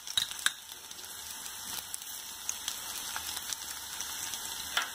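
Chopped vegetables (shredded cabbage, onion, capsicum, carrot) sizzling in hot oil in a non-stick wok over a high gas flame, a steady crackling hiss. A couple of sharp clicks in the first half-second as the steel spoon knocks the pan.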